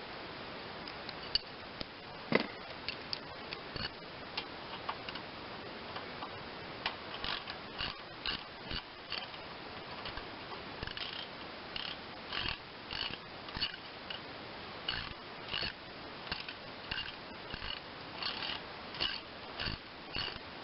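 Irregular light clicks and taps from hand work on the engine's choke and throttle cable linkage at the carburetor, with a sharper click about two and a half seconds in.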